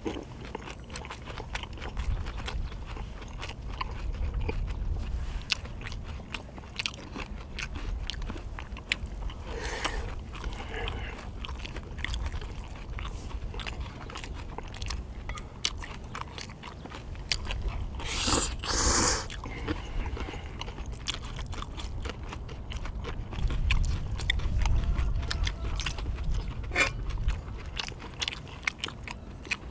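Close-miked chewing and mouth smacking of stir-fried Korean sundae (sausage) with glass noodles and vegetables, with many small wet clicks and an occasional chopstick tap. A louder rush of noise comes a little past halfway, and a low rumble sits under it at times.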